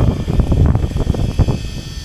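Wind buffeting the microphone in uneven gusts over the steady drone of a fishing boat's engine, with a faint high steady whine above it.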